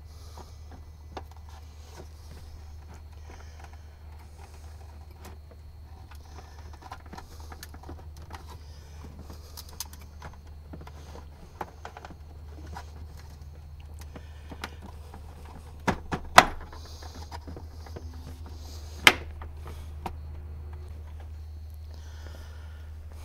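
Plastic dash console panel of a golf cart being handled and pressed back into place: scattered light clicks and rattles, then two sharp knocks about three seconds apart in the second half, over a steady low hum.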